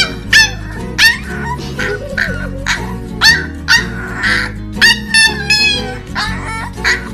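Corgi puppy barking in short, high yaps, about two a second, over background music.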